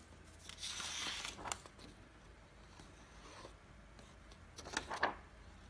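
Rustling from handling the work, in two bursts: a longer rustle about half a second in, then a sharper crinkle of a paper pattern sheet being picked up, about a second before the end.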